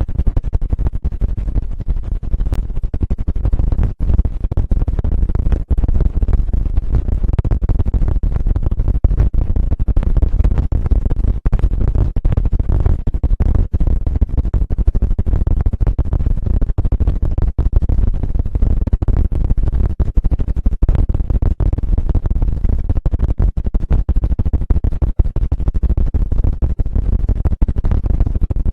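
Fast, unbroken scratching and rubbing close up on the microphone, a dense loud crackle heaviest in the low end, typical of an intense ASMR ear-stimulation trigger.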